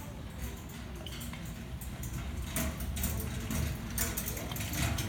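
Electric fireplace's built-in crackling-logs sound effect: scattered sharp crackles over a low rumble, growing more frequent about halfway through.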